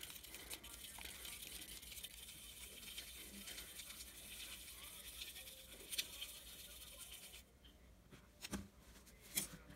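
Paintbrush stirring and scrubbing in a small cup of black acrylic paint thinned with water, a steady scratchy swishing that stops about seven seconds in. A couple of light taps follow near the end.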